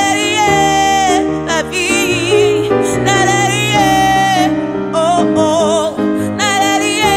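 A woman singing long held notes with vibrato over piano chords.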